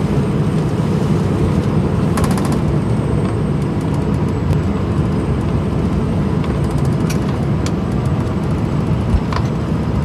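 Scania plow truck's diesel engine running steadily under load in ninth gear while plowing light snow, heard from inside the cab as a low, even rumble. A few short faint ticks come through at intervals.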